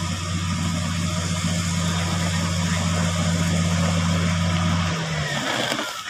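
Komatsu motor grader's diesel engine running steadily at low revs, a deep hum that cuts away about five seconds in.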